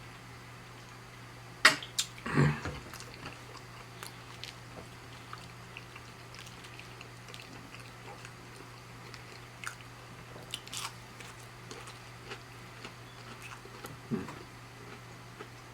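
Close-up eating sounds: a person biting and chewing plant-based chicken patty and wings, with sharp mouth clicks and smacks. The loudest bites come about two seconds in and again near the end.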